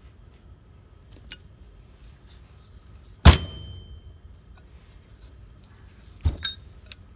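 Metal transmission parts clanking on a workbench: one loud ringing clank about three seconds in, then two lighter clinks near the end.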